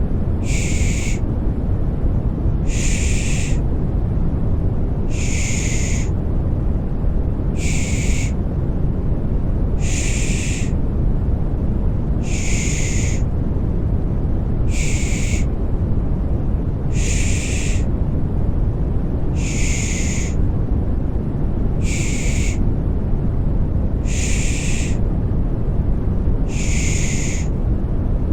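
Baby-soothing 'shh' shushing repeated evenly, about once every two and a half seconds, over a steady deep white-noise rumble.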